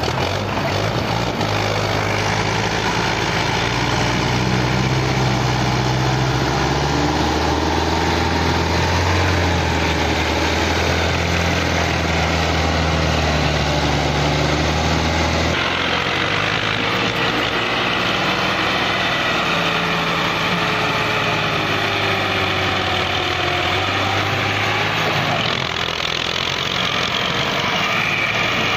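Tractor diesel engines running steadily at low revs, loader and trolley tractor working together. About halfway through the engine note changes abruptly to a different, slightly wandering pitch.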